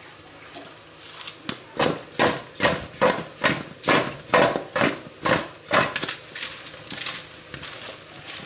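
Baked litti balls tossed by hand in a steel bowl to coat them with ghee, knocking against the metal bowl. After a quiet start comes a steady run of about a dozen knocks, two or three a second, then softer, irregular knocking near the end.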